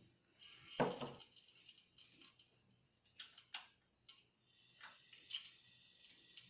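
Whole spices (cinnamon, cloves, bay leaves) frying in hot oil in a large pot: faint, irregular ticks and crackles over a light sizzle.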